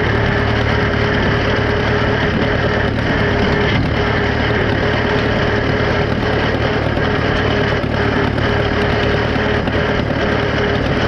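Farmall F-20 tractor's four-cylinder engine running steadily while it pulls a hay rake, with a steady whine over it that drops out now and then.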